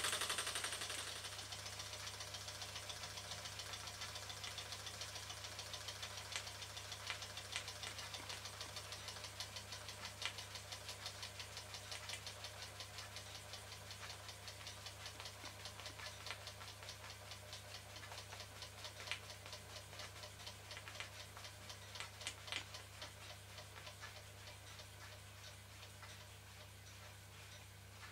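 Märklin toy steam donkey engine running: a rapid, even ticking from its single cylinder and crank, growing gradually fainter. A hiss dies away in the first second.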